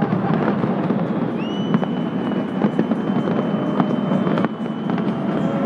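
New Year fireworks display: many sharp bangs and crackles over a dense, steady din. A long high whistle sets in about a second and a half in, rising briefly and then holding one pitch until near the end.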